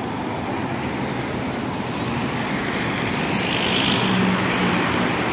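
Road traffic on a city street: a steady rush of passing cars, swelling around three to four seconds in as one goes by.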